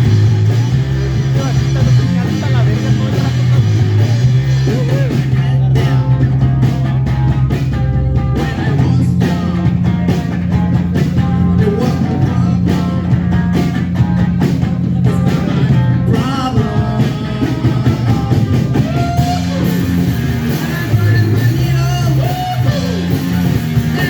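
Live rock band playing a song: a Gibson Les Paul Standard electric guitar over a bass line and drums, with a singer's vocal.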